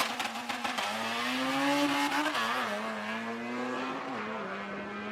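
Car engine accelerating hard down a drag strip. Its pitch climbs and drops back at gear changes, about two and four seconds in.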